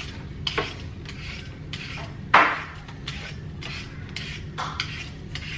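Vegetable peeler scraping the skin off a potato in repeated short strokes, roughly two a second, with one louder stroke a little over two seconds in.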